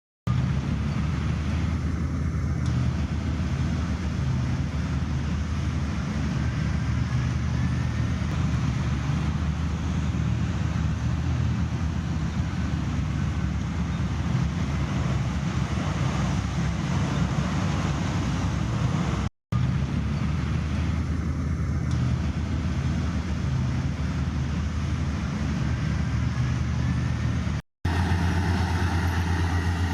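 Heavy diesel construction machinery running, a steady deep engine rumble with a droning pitch. It breaks off for an instant twice, about two-thirds of the way through and again near the end, and after the second break the drone is steadier.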